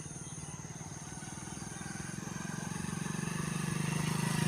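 A motor vehicle's engine running with fast, even pulses, growing steadily louder as it approaches.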